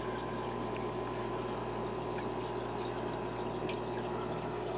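Steady water trickling and bubbling from a 20-gallon aquarium's air-driven sponge filter, with a steady low hum beneath it.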